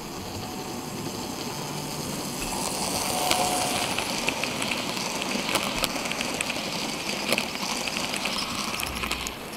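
N scale model passenger train rolling past close by: a steady rushing of metal wheels on the track that grows louder about two and a half seconds in, with scattered light clicks throughout.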